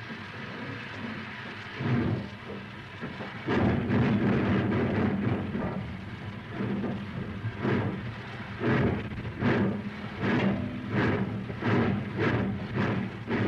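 Steam locomotive starting to pull away: a steady hiss of steam, a loud blast of steam about three and a half seconds in, then exhaust chuffs that come faster and faster, from about one a second to nearly two a second.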